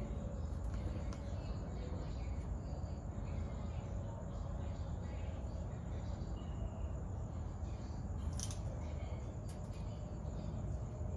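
Night-time garden ambience: a steady low rumble with a few faint clicks about eight and a half and nine and a half seconds in.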